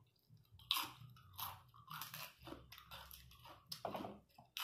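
Close-miked chewing of a crisp mouthful of food: a string of irregular crunches, about two a second.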